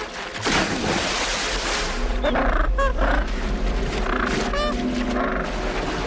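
Water splashing heavily as a sea lion thrashes a caught penguin at the surface, loudest from about half a second to two seconds in. Short harsh penguin calls come a couple of seconds in and again later.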